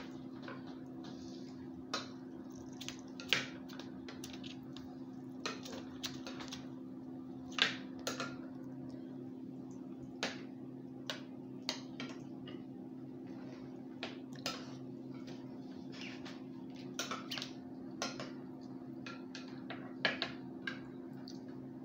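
Scattered clicks and taps of a metal spoon against a ceramic bowl and of a duckling's bill pecking at corn grits on paper, over a steady low hum.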